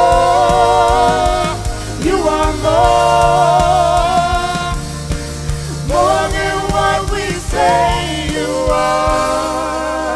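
Live gospel worship band: singers holding long notes with vibrato over acoustic guitar, keyboard, bass and drums. The bass drops away near the end.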